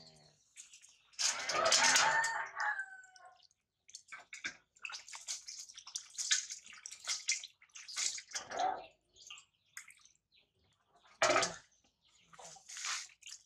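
Water splashing and dripping in a stainless-steel bowl as a baby monkey is washed with handfuls of water poured over its head. A loud animal call with falling pitch sounds about a second in.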